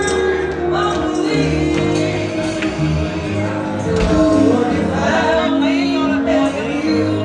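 Music with singing: a voice sings over held instrumental chords.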